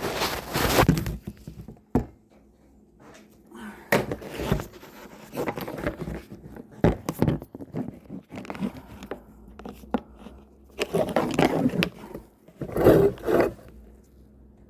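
Close handling noises: irregular scraping and rustling, broken by several sharp knocks, with short quiet gaps between.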